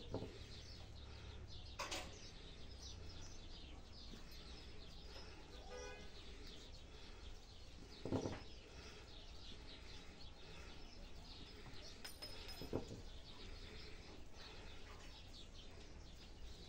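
Faint chirping of small birds in the background, with one repeated call about six seconds in. A few soft knocks of handling come through, the loudest near the middle.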